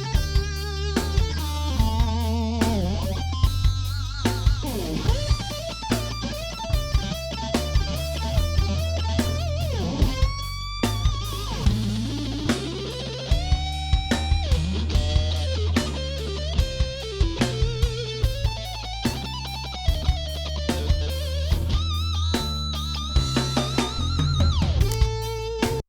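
Short rock backing track of drum kit and bass guitar under an electric guitar solo, the lead notes bent and shaken with vibrato.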